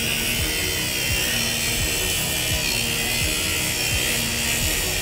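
A thin abrasive cut-off wheel on a compact grinder cutting through the cast aluminium bellhousing of a Nissan CD009 transmission, a steady high whine. Background music with a deep beat plays under it.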